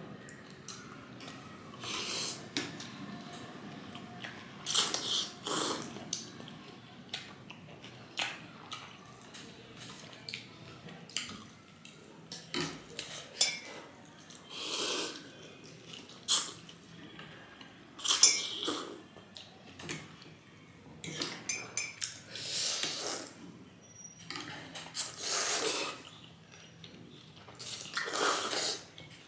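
Noodle soup being eaten from ceramic bowls: repeated wet slurps of thukpa noodles and broth, with forks and spoons clinking and scraping against the bowls.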